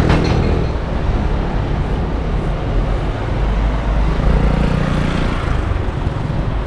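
Road traffic on a city street: a steady rumble of passing cars, with one vehicle fading away in the first second and another going by about four to five seconds in.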